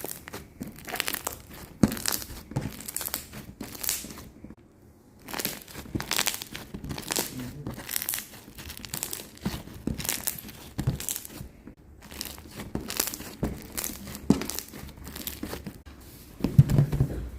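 Slime being squished and kneaded by hand, giving a dense, irregular crackling and crinkling with short lulls about four and twelve seconds in.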